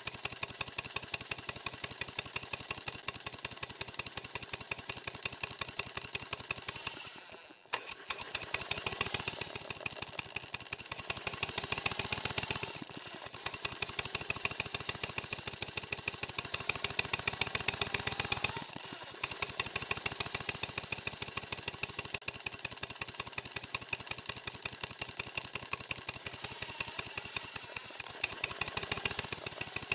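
Model steam engine running on compressed air, a fast, steady stream of exhaust beats. Three times its sound drops off briefly and comes back, as the Watt centrifugal governor's throttle valve cuts the air and the engine settles back to a steady speed.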